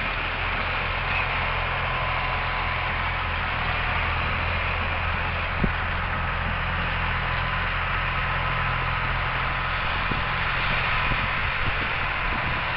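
Euclid R260 haul truck's large diesel engine idling steadily: an even low drone with a hiss over it. One short knock comes about halfway through.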